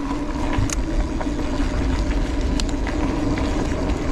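Mountain bike rolling along a dirt and gravel fire road: a steady noise of tyres on the ground with a low hum, wind on the microphone, and a few faint small clicks.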